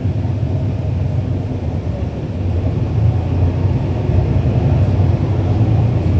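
Cummins ISL9 straight-six diesel engine of a 2011 NABI 40-SFW transit bus, heard from inside the bus, running steadily as it drives and growing louder about halfway through.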